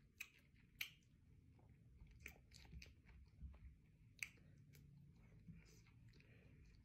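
Faint, close chewing of soft fruit, sliced banana and cherries, with a scattering of short, sharp wet mouth clicks.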